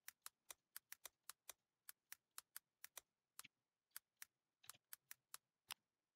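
Typing on a computer keyboard: a run of faint, quick key clicks at uneven spacing, about four a second, stopping shortly before the end.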